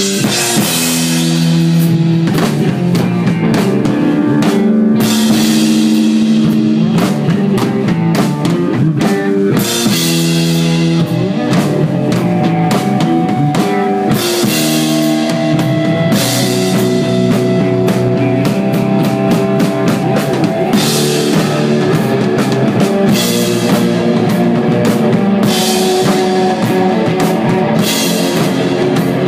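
Desert rock band playing live: a drum kit and electric guitar over sustained low notes, at a steady loud level.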